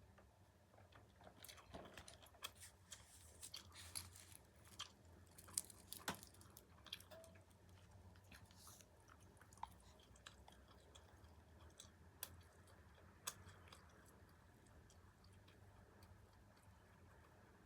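A person chewing food close to the microphone, with many crisp crunching clicks that come thick in the first half and then thin out to a few.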